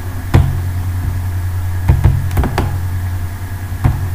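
Sharp computer-mouse clicks, six in all, some in quick pairs, over a steady low electrical hum.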